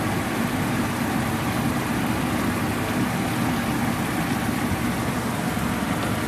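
A steady low machine-like hum with a rushing noise over it, unchanging throughout: kitchen background noise beside a pan on a gas stove.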